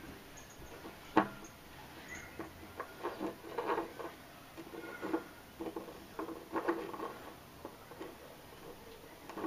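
Smoky quartz crystal cluster turned over by hand on a tabletop: scattered clicks, taps and scraping of stone and fingers against the table. There is one sharp click about a second in, and busier bursts of handling a few seconds later.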